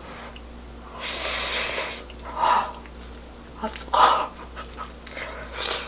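A person blowing hard on a hot spoonful of fried rice to cool it: one long breath of air, then shorter puffs.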